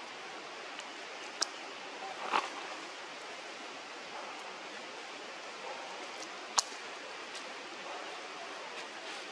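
Steady hiss of outdoor forest ambience, broken by a few sharp clicks or snaps, the loudest about six and a half seconds in, and a short rustle a little over two seconds in.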